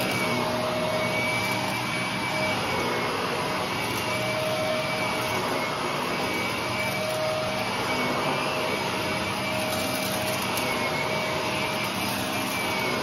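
Shark upright vacuum cleaner running steadily with its brushroll spinning, pushed over thick carpet with a crunch from the pile, and a steady motor whine riding on the suction noise.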